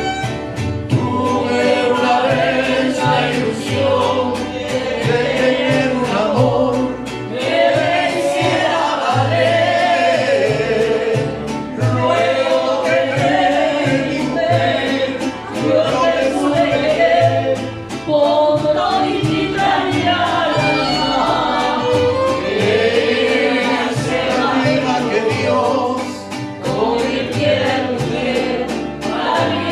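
Mariachi music: voices singing together over the band, with a bass line stepping from note to note beneath.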